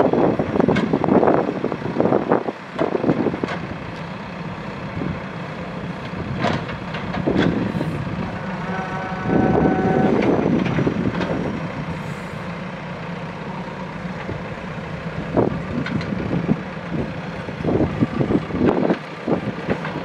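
A JCB 3DX backhoe loader's diesel engine runs under load while the backhoe digs, swelling louder a few times, with scattered knocks and clanks of the bucket and earth. A brief high steady tone sounds near the middle.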